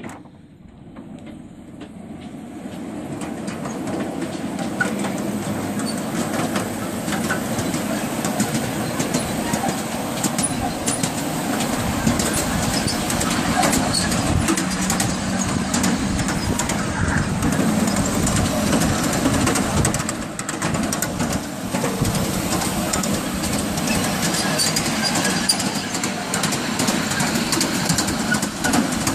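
Handmade ride-on miniature train running along its track: a steady rattling rumble with many small clicks from the wheels, building up over the first few seconds as it gets under way.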